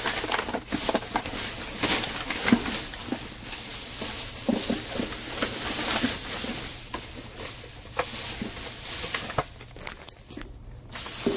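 Irregular rustling and crinkling of plastic bags and cardboard in a dumpster as its contents are handled, quieter for a moment near the end.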